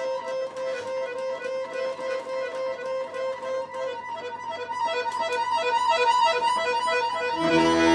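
Giulietti button accordion played in rapid, repeated short high notes, an impression of rain, until a loud low chord comes in with the bass near the end.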